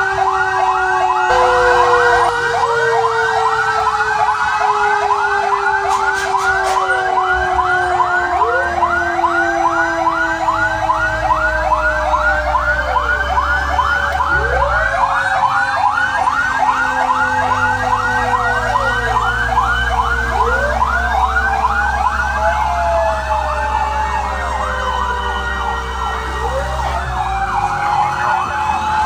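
Several fire-truck sirens sounding together, heard from inside a fire truck's cab: a fast yelp sweeping about three times a second over slower wails that rise and fall every few seconds. The truck's engine rumbles underneath, stronger from about a third of the way in.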